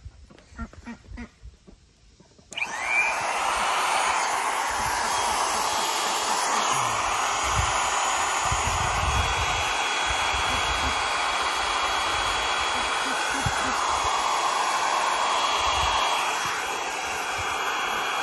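Small electric water transfer pump switched on about two and a half seconds in, spinning up and then running with a steady loud whir. It is not moving water: the transfer pump isn't working. Faint duck quacks come before it starts.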